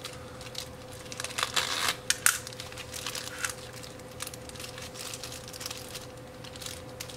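Small plastic parts bag crinkling and rustling in the hands as pin headers and sockets are taken out of it, with a busier, louder stretch about one and a half to two and a half seconds in. A faint steady hum runs underneath.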